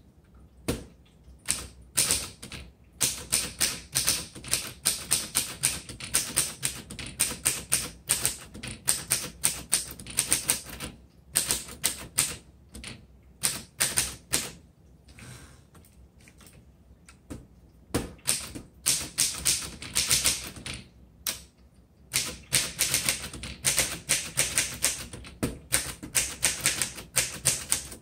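A 1930 Corona Sterling manual portable typewriter being typed on: quick runs of sharp key-and-typebar clacks, broken by a few short pauses of a second or two.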